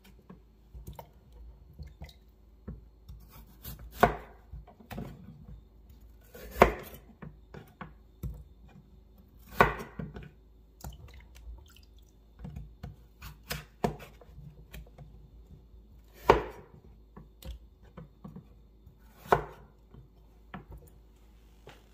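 Kitchen knife cutting peeled potatoes into large cubes on a wooden cutting board: a sharp knock of the blade on the board every few seconds, five in all, with lighter taps and clicks between.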